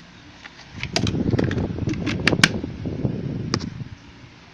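Handling noise: rubbing and rustling with about half a dozen sharp clicks and taps. It starts about a second in and stops near the end.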